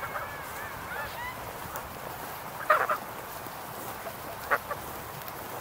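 Embden geese honking: a loud cluster of honks a little before halfway through, and a shorter one later.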